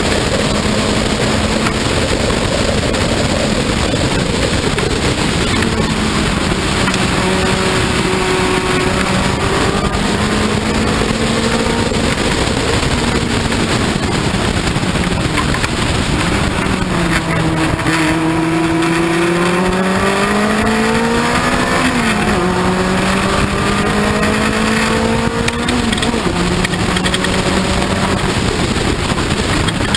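Race car engine heard from the open cockpit at speed, over heavy wind and road noise. Engine pitch holds fairly steady, dips about 16 seconds in, then climbs under acceleration and drops sharply twice, about 22 and 26 seconds in, as the driver upshifts.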